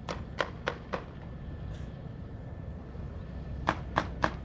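Distant gunfire: a quick run of four sharp shots in the first second, then three more near the end, over a steady low rumble.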